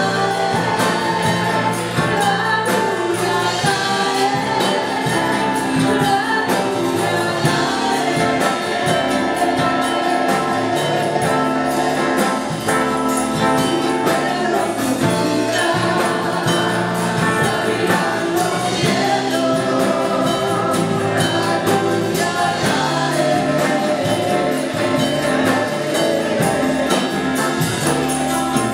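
Live Spanish-language worship song: several women sing together into microphones, accompanied by strummed acoustic guitar and electric guitar, playing steadily throughout.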